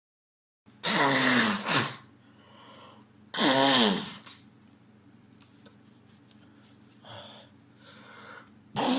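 A man blowing his nose hard, in long forceful blows with a wavering pitched tone: one about a second in, another about three and a half seconds in, and a third starting near the end.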